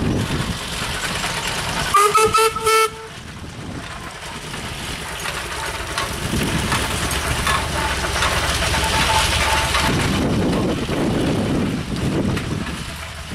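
Foden steam wagon sounding a short toot on its whistle about two seconds in, broken once, the loudest sound. Then the steam timber tractor's running noise swells as it passes close, over a steady low hum, and eases off as it draws away.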